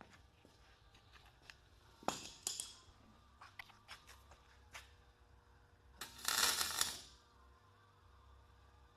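Scattered light clicks and knocks of steel parts and clamps being handled, then, about six seconds in, a hissing burst about a second long from a wire-feed (MIG) welder laying a tack weld on the steel bumper.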